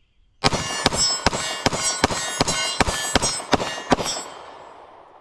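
Glock 26 Gen 5 9mm pistol fired rapidly, a magazine dump of about ten shots in three and a half seconds, with the steel targets ringing as they are hit. The ringing dies away after the last shot.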